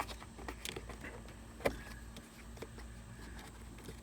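Plastic fuse box cover being handled and pressed into place, with a few faint clicks and one sharper click about 1.7 seconds in as its latch fails to lock correctly.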